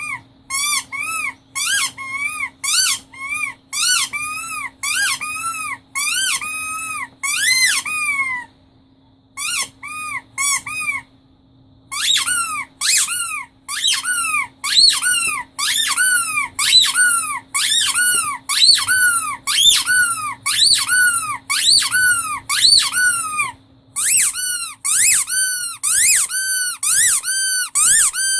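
Rubber squeaky toy squeezed over and over, about two squeaks a second, each squeak rising and falling in pitch, with short pauses between runs. A faint steady hum lies underneath until near the end.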